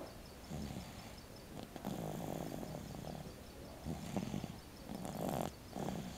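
Snoring in deep sleep: a run of irregular, rattling snores of uneven length, the longest lasting over a second, about two seconds in.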